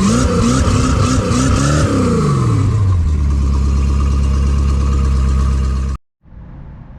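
Inboard boat engine, on its first run after a refit, revved in quick repeated blips, then dropping to a steady idle about three seconds in. The sound stops abruptly about six seconds in.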